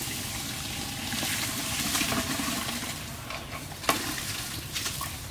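Rice pouring from a metal basin into a large pot of hot water, a rushing pour that swells in the middle, with one sharp knock about four seconds in.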